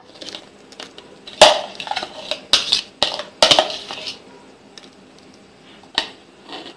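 A metal spoon scraping and knocking against a plastic bowl and a mixer jar as the thick, half-frozen ice-cream mix is poured and scraped into the jar. There is a run of sharp clatters in the first few seconds and one more knock near the end.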